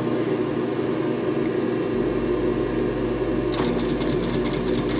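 Electric sewing machine running steadily, stitching along the edge of a folded waistband.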